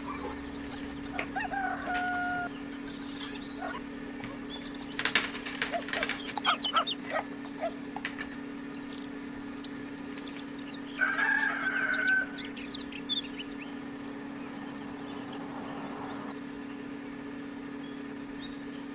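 Chickens clucking in the background over a steady low hum, with short pitched calls about two seconds in and again around eleven seconds, and a busier patch of chirps and clicks around five to seven seconds.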